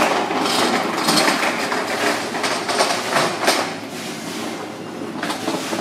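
Irregular clattering and sharp knocks over a steady background din.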